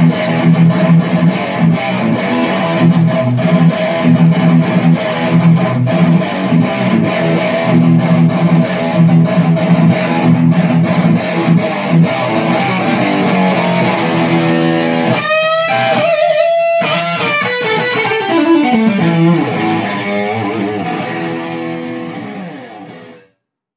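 PRS electric guitar played through a Zoom G3Xn multi-effects pedal on its Marshall JCM800 amp model, into a Laney amp: fast rhythmic picked riffs, then a held high note with vibrato about fifteen seconds in, a falling slide down the neck, and a last chord ringing out and fading near the end.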